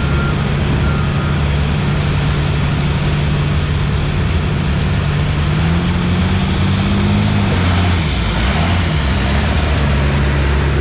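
Engine of a competition pulling vehicle running steadily. It revs up about six seconds in and drops back about two seconds later.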